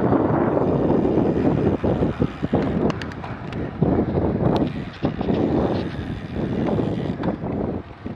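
Wind buffeting the microphone of a camera worn by a cyclist riding a road bike, a loud, uneven rumbling that eases a little after about two seconds, with a few sharp clicks.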